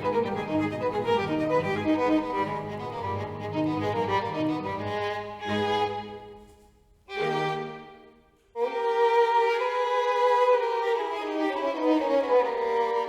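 Background music led by violin over lower bowed strings, playing a slow melody. About six seconds in, it fades almost to silence, a short phrase returns, and the strings come back in full about eight and a half seconds in.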